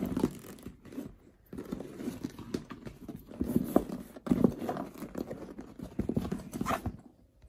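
A coated-canvas duffle bag being handled and smoothed flat by hand: an irregular rustle of the stiff canvas with many soft pats and knocks, stopping about seven seconds in.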